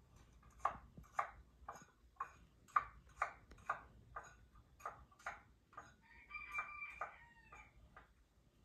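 Knife chopping a vegetable on a wooden block, played from a television: sharp, even strokes about two a second. Around six seconds in, a drawn-out call with a steady pitch sounds over the last strokes, then the chopping stops.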